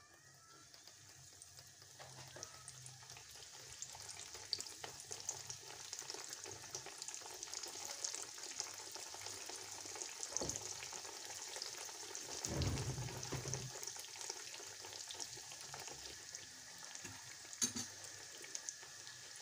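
Cheese-filled pişi dough shallow-frying in hot oil in a pan, a dense crackling sizzle that builds over the first few seconds as pieces go in. A few low knocks come about halfway through.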